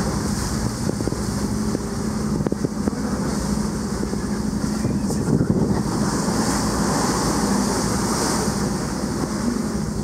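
Ship's engine running with a steady low hum, under wind buffeting the microphone and the wash of the sea. A few light knocks in the first few seconds.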